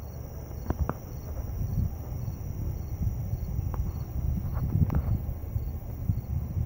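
Night insects: crickets chirping in an even, repeating pulse over a steady high-pitched insect drone. A low rumble swells underneath and is the loudest part, with a few faint clicks.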